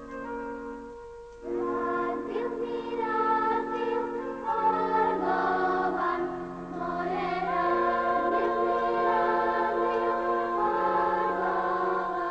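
A choir singing slow, sustained lines over held low notes, coming in about a second and a half in after quieter music.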